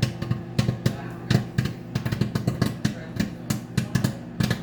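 Popcorn kernels popping inside a microwave oven: sharp, irregular pops several times a second over the oven's steady hum.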